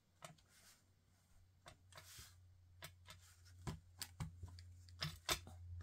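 Quiet handling of paper and a wood-mounted rubber stamp on a craft desk: scattered light taps and soft paper rustles, over a low steady hum.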